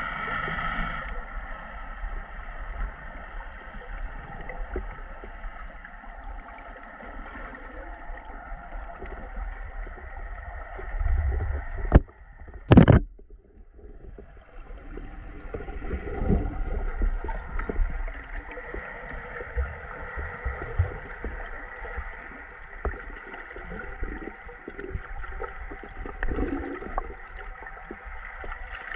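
Underwater sound picked up by a camera: a steady wash of water noise with a faint steady hum and low rumble. Two sharp knocks come about twelve seconds in, and then the sound briefly drops away before the water noise returns.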